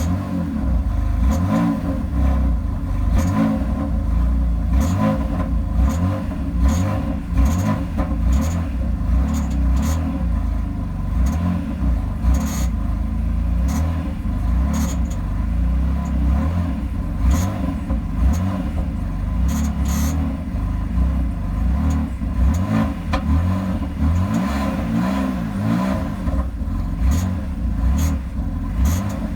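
BMW F80 M3 running with a steady low rumble, over which come irregular sharp clicks, a few every couple of seconds: the weird noise the owner is trying to pin down.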